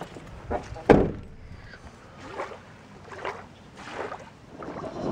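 A sharp, loud thump about a second in, followed by several softer knocks.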